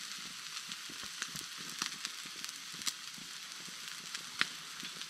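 Ribeye steak sizzling in a cast-iron frying pan: a steady sizzle with several sharp pops of spitting fat.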